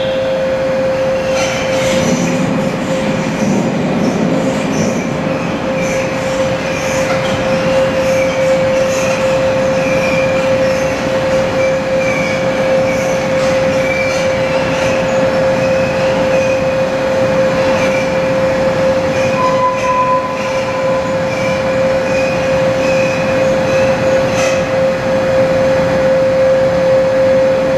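Servo-hydraulic shake table driving a two-span precast concrete bridge model through a design-level earthquake motion. A steady high hum runs throughout, with wavering squeals, scattered clicks and creaks as the table and specimen shake, and a low rumble a couple of seconds in.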